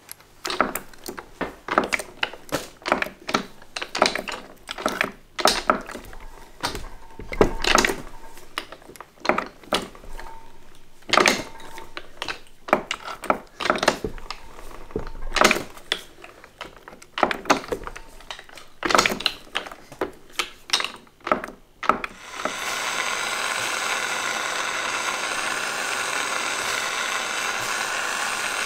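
Hand-cranked jeweller's rolling mill clicking and clunking irregularly, about one or two knocks a second, as an 18ct gold bar is rolled down through its grooved wire rollers. About 22 seconds in this gives way to the steady hiss of a gas torch flame heating the gold to anneal it.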